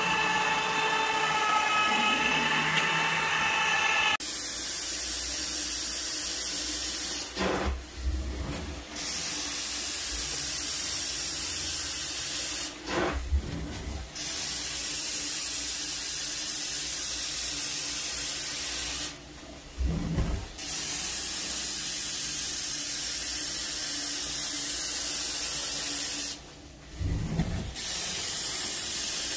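Carpet extraction wand working an area rug: a steady loud hiss of suction and spray that drops out briefly four times, each with low thumps, at the end of a stroke. It is preceded for the first few seconds by the steady pitched whine of an electric floor machine's motor.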